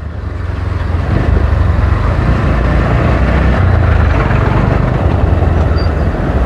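Bajaj Pulsar NS motorcycle engine running at low speed, heard from the rider's seat with wind noise on the microphone, getting louder over the first second.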